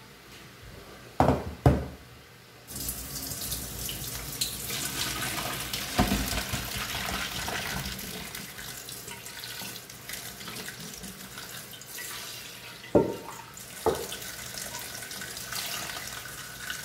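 Hot water and boiled potato chunks poured from a pot into a stainless-steel colander in a steel kitchen sink. The water rushes steadily into the sink from about three seconds in, with a few sharp metal clunks of pot and colander, two just before the pour and two more near the end.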